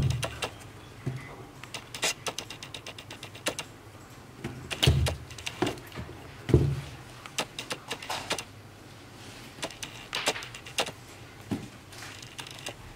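Handling noise of a suede-and-mesh sneaker being turned over and pressed in the hands: scattered clicks and rubbing, with three dull thumps near the start, about five seconds in and about a second and a half later.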